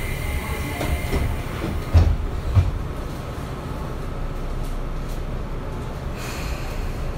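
Tobu 9050-series electric train standing at a station, heard from inside the car: two sharp thuds about two seconds in as the doors shut, over a low steady rumble. A short hiss of air follows near the end as the train readies to move off.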